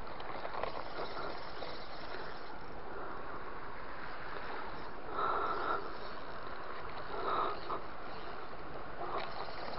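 Steady outdoor ambience at the water's edge: an even hiss, with two brief, slightly louder sounds about five and seven seconds in.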